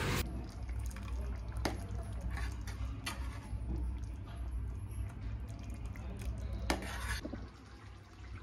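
A steel ladle scooping thin besan gravy in a metal kadhai, the liquid dripping and pouring back off the ladle, with a few light clinks of the ladle against the pan. A low steady hum runs underneath.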